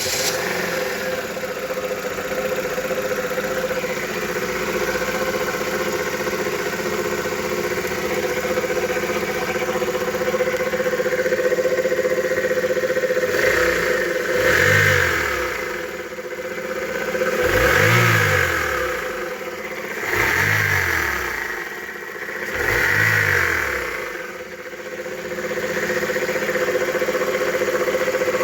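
Chevrolet Aveo's four-cylinder petrol engine running just after a start, with a loud knocking and rattling whose source the owner is trying to find. About halfway through it is revved four times in a row, each time rising and falling.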